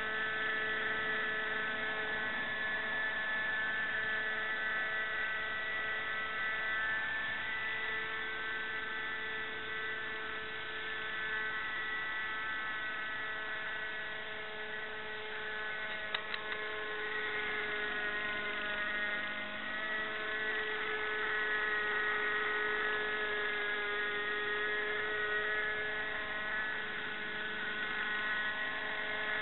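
Nitro-powered RC helicopter's glow engine and rotors running steadily as it hovers low, a high whine made of several tones whose pitch dips and rises a little with the throttle. A few sharp clicks about halfway through.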